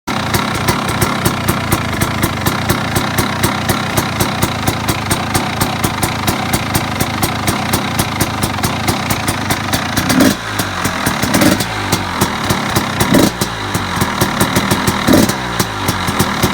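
KTM 300 EXC single-cylinder two-stroke engine idling with a rapid, even pop of exhaust pulses, blipped up briefly four times in the second half.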